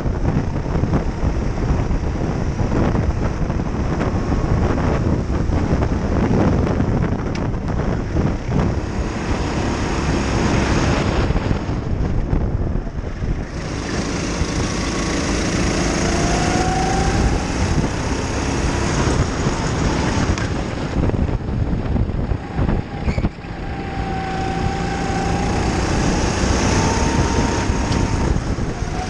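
Go-kart engine heard from a camera mounted on the kart, running hard at racing speed. Its pitch drops off and then climbs again as the kart slows for corners and accelerates out of them.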